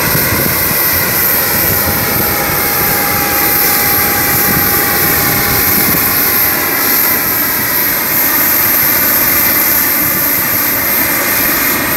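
Jet aircraft running close by on the apron: a loud, steady rush with a whine of several tones held level throughout.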